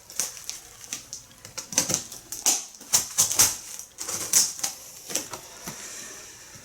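Packaging being handled during an unboxing: irregular crinkles, scrapes and clicks of cardboard and packing material.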